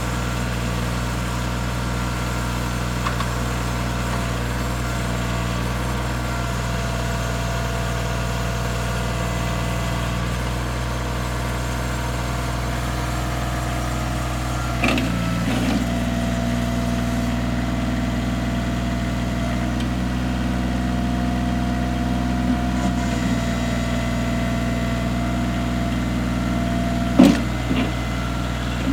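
Bobcat CT225 compact tractor's diesel engine idling steadily, with a brief clunk about halfway through and a louder knock near the end.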